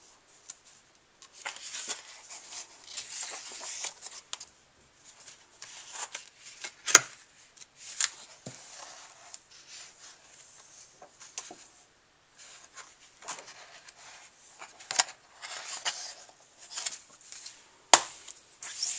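Paper pages of a large softcover colouring book being turned and rustled by hand, with several sharp paper snaps and taps among the rustling, the loudest about seven seconds in and near the end.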